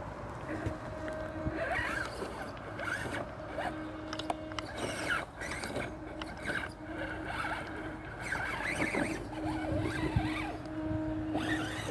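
The electric motor of a modified FTX Outback RC crawler whines in short on-off bursts, with scraping and clicking as its tyres work over rough ground.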